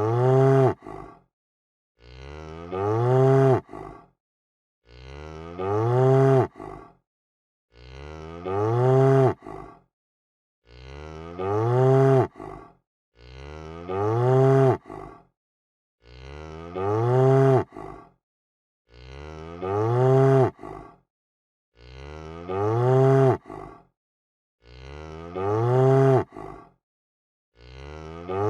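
A cow mooing over and over, the same drawn-out moo about every three seconds. Each moo rises and then falls in pitch, with silence between.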